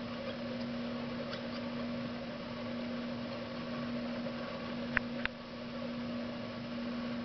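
Steady low hum over a constant hiss, broken about five seconds in by two sharp clicks about a third of a second apart.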